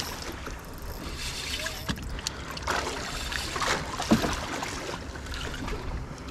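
Water splashing and lapping against the hull of a small fishing boat, with a few light knocks; the sharpest knock comes about four seconds in.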